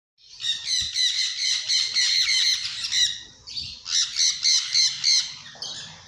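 Birds chattering and squawking in a fast run of quick, high calls, with a short lull a little past three seconds in before the calls pick up again.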